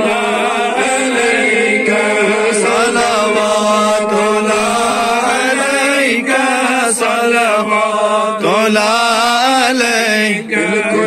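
Men chanting a devotional salaam, a sung Islamic greeting to the Prophet: a lead male voice carries the melody in long, wavering held lines, with others in the group joining in.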